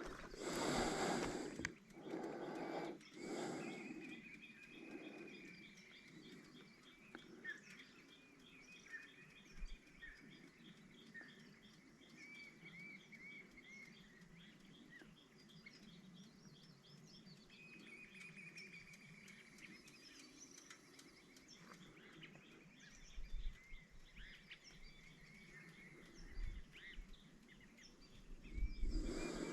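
Faint dawn chorus of birds: many short whistled calls, and a fast, even series of chirps that runs on through most of it. Bursts of low rumble come near the start and again near the end.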